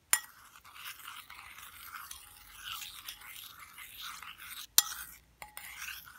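A metal spoon stirs a thin, runny peroxide and baking soda mixture in a ceramic bowl, scraping steadily against the bottom and sides. Sharp clinks of the spoon against the bowl come at the start and about three-quarters through, followed by a lighter clink that rings briefly.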